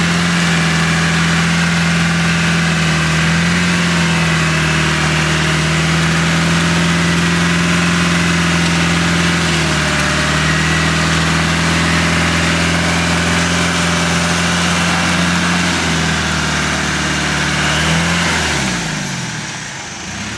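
Land Rover Discovery's engine pulling steadily under load through deep mud, holding nearly the same revs with small shifts in pitch. Near the end the revs fall away and the engine quietens.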